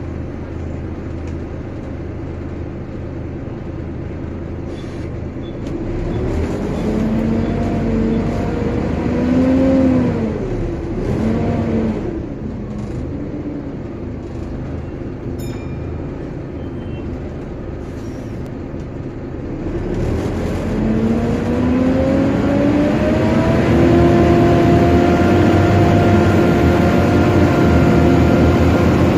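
Volvo B7TL double-decker bus heard from the upper deck: a steady low hum, then a whine rising as the bus pulls away about six seconds in, dipping and easing off, and rising again from about twenty seconds before holding a steady, louder drone with a whine.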